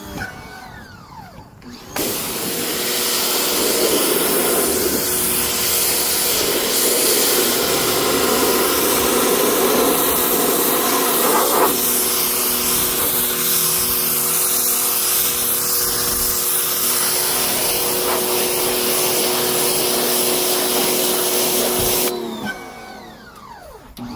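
Wet/dry shop vacuum running steadily, sucking dirty, soapy water out of soaked car carpet; it starts about two seconds in and cuts off about two seconds before the end.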